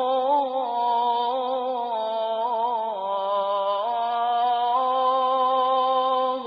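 A voice chanting a long, drawn-out melodic line in held, wavering notes. The pitch dips about three seconds in and climbs back about a second later.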